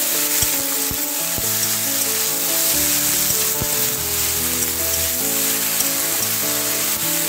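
Diced potato, flat beans and brinjal sizzling in hot oil in a metal kadai, stirred with a spatula that knocks against the pan now and then. Background music with held notes plays along.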